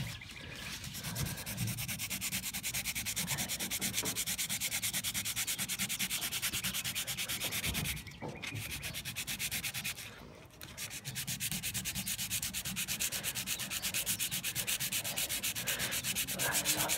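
Coarse 80-grit sandpaper rubbed by hand on a vinyl (PVC) patio door sill in rapid back-and-forth strokes, flattening out a deep scratch. The rasping stops briefly twice about halfway through.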